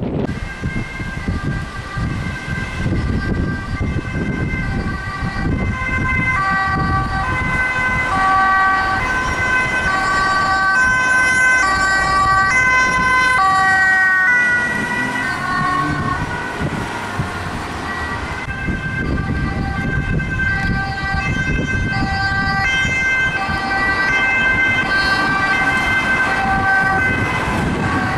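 Two-tone sirens of Dutch ambulances, alternating between a high and a low note, with more than one siren sounding at once over road-traffic rumble. About halfway through the notes slide down briefly as a siren passes.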